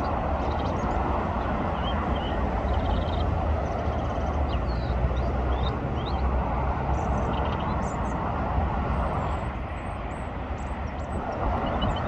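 Steady rumbling outdoor noise with faint, short, high-pitched chirps and calls of small birds scattered throughout.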